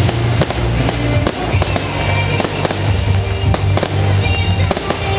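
Fireworks going off in a string of sharp bangs and crackles over loud show music with a heavy, sustained bass.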